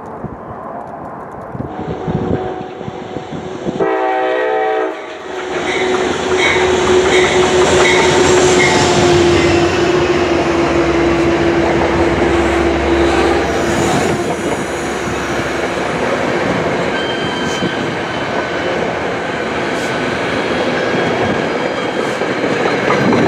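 Metro-North train led by a GE P32AC-DM locomotive sounds a horn blast of about a second, some four seconds in. The locomotive and its Bombardier Shoreliner coaches then pass close by with a loud rolling rumble and the clatter of wheels over the rail joints.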